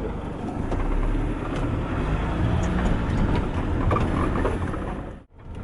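Toyota van driving along a rough country lane: a steady engine and road rumble, heard from inside the van. The sound drops out for a moment near the end.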